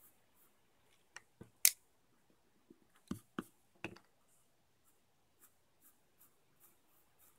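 Pencil sketching on paper: faint, short scratching strokes, with a handful of sharper clicks and taps between about one and four seconds in.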